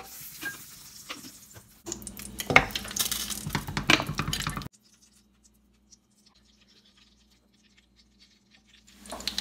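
A spoon scraping and clinking against a metal wok as solid fats are scooped into it, a quick run of scrapes and knocks. It cuts off abruptly to near silence for about four seconds, and soft kitchen noise resumes near the end.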